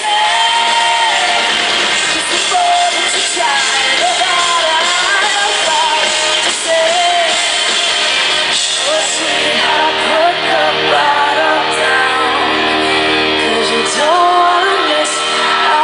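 A female lead singer's live vocal over a full pop-rock band with horns, played loud through a concert PA and heard from the audience. About two-thirds of the way through, the band settles into a long held chord under her voice.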